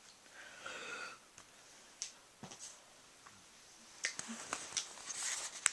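A brief, faint cat yowl about half a second in, then scattered sharp clicks and rustling that grow busier over the last couple of seconds.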